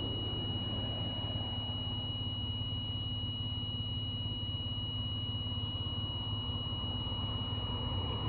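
Minn Kota PowerDrive trolling motor's electronic buzzer sounding one steady high-pitched tone during pairing with its micro remote, over a low steady hum.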